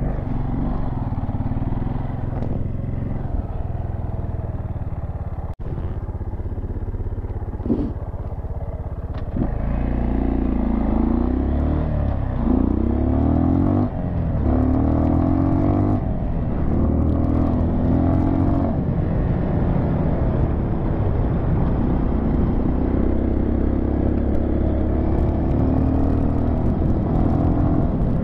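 Dual-sport motorcycle engine under way on a gravel road. For the first several seconds it runs at a low, even pace. From about ten seconds in its pitch climbs and drops back several times, about every two seconds, as it accelerates up through the gears, then it settles into a steady cruise.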